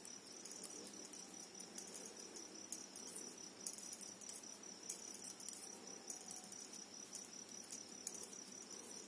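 Faint clicking of metal knitting needles and rustle of wool yarn as stitches are worked by hand, over a steady faint high-pitched chirring.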